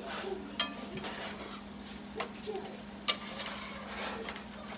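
A spatula scraping and tapping in a nonstick skillet as scrambled eggs, sausage and cheese are stirred and chopped, with a few sharp taps against the pan and a light sizzle of frying. A steady hum runs underneath.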